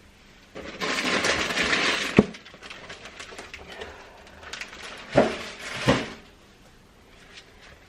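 Household items being handled in a kitchen: a rustle lasting about a second and a half that ends in a sharp knock, then light clicks and two more knocks, as of things being set down.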